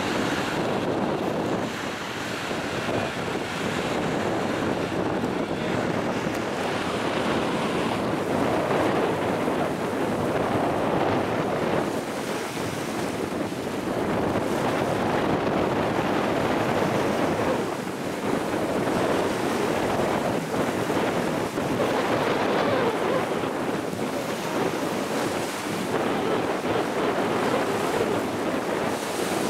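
Strong gusty wind blowing over the microphone, with rough, choppy wind-driven water; the level rises and falls with the gusts.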